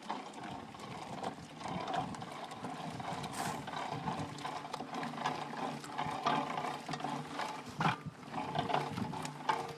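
Hand-cranked fruit grinder with steel spikes crushing pitted nectarines: a continuous grinding and squishing of fruit pulp, with many small clicks from the mechanism.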